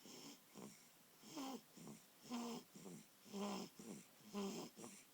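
Baby snoring: short, noisy breaths about once a second, each carrying a brief pitched grunt.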